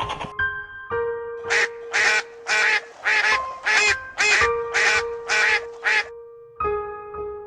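A duck quacking in a quick, even run of about nine quacks, roughly two a second, then stopping, over background music with long held notes.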